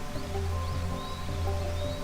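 Soft ambient relaxation music with held notes and a deep low tone that swells about once a second, over a steady hiss of falling water from a waterfall. A few short high bird chirps come through.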